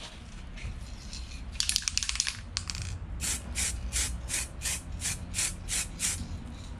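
Aerosol can of Yamaha outboard touch-up paint sprayed in about a dozen short hissing bursts, some four a second, dabbing small amounts onto the cowling. Before it, about two seconds in, a brief rattle of sharp clicks.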